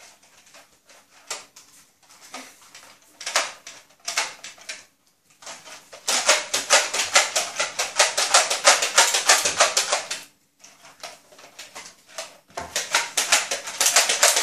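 Rapid plastic clicking and clattering as Nerf blasters and foam darts are handled. There are scattered clicks at first, then a dense run of quick clicks from about six to ten seconds in, and another near the end.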